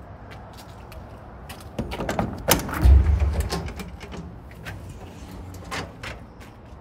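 Metal service-body compartment doors and their latches being worked: sharp latch clicks and rattles, with one heavy thump of a door shutting about three seconds in.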